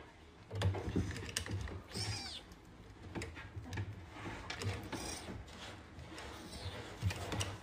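Newborn kitten giving thin, high-pitched mews: one clear cry about two seconds in and fainter ones later, with soft handling rustles and clicks.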